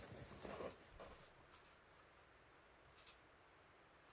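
Faint handling sounds as a fabric tool case is held open and a plastic battery pack is lifted out by hand: soft rustling in the first second, then a light knock about three seconds in, otherwise near silence.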